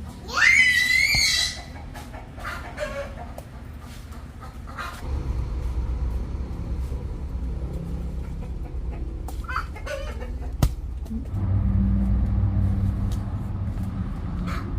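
A rooster crows once, loud, near the start, with a rising call that levels off; a few short hen clucks follow. From about a third of the way in a low steady rumble runs underneath, growing louder near the end, with one sharp click.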